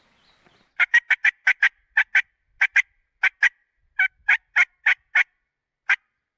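A hunter's diaphragm mouth call imitating a hen turkey: a loud run of about seventeen short, sharp hen calls in quick pairs and groups, starting about a second in and stopping near the end. It is calling to draw a gobbler in.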